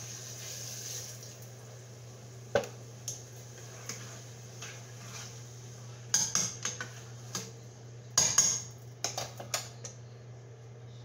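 Water pouring from a plastic jug into a cooking pot, tailing off about a second in. Then a few single knocks and two bursts of clattering from the pot and utensils being handled, the loudest about six and eight seconds in.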